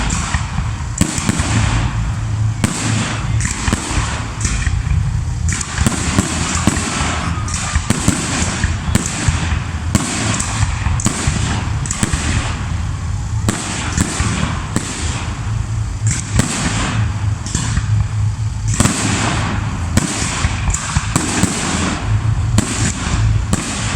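Fireworks display: a dense, unbroken run of bangs and crackling bursts, several a second.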